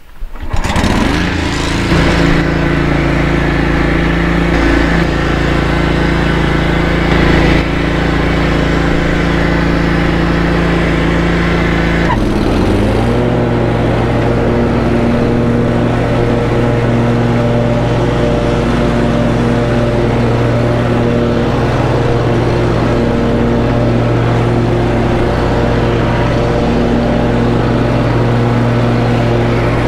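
Engine of a Snapper Pro walk-behind commercial lawn mower starting up and running steadily. About twelve seconds in, its pitch briefly dips and rises, then it holds a new steady speed.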